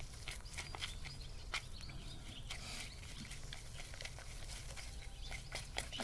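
Close-up eating sounds: an irregular run of small wet clicks and smacks as a man chews natto taken up with chopsticks.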